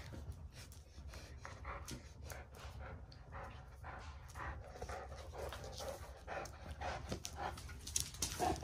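A Newfoundland and a Cavalier King Charles spaniel puppy panting and scuffling while they tug at a toy, with many quick clicks that grow busier toward the end.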